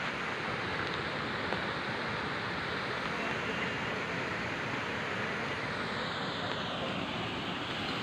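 Steady rushing of a waterfall and river: an even, unbroken roar of water that dims slightly near the end.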